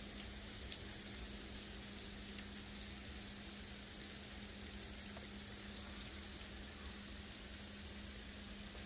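Sleet, small ice pellets, falling on snow and shrubs: a faint steady hiss with scattered tiny ticks, over a steady low hum.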